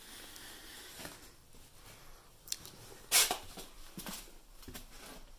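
Footsteps scuffing and crunching on a gritty concrete floor: a few short, irregular sounds, the loudest just after three seconds in, over faint room hiss.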